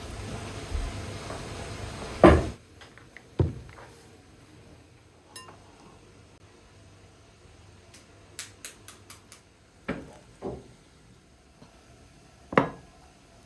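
Sharp knocks and clinks of dishes and a glass bowl on a table while eggs are cracked and separated. The loudest knock comes about two seconds in and another near the end, with a quick run of small ticks in between. A steady rumbling noise underneath cuts off suddenly just after the first knock.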